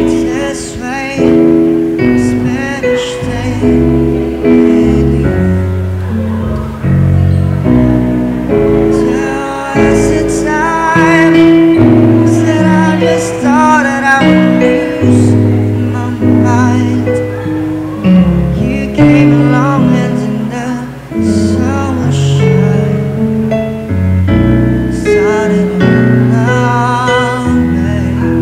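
A slow song: a singer with vibrato over sustained instrumental accompaniment.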